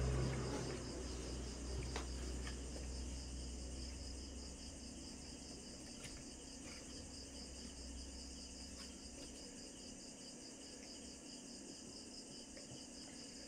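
A cricket chirping steadily in the background, an even, rapid high-pitched pulsing, under a low rumble that fades away over the first few seconds. A few faint clicks of steel nail nippers cutting at the toenail edge.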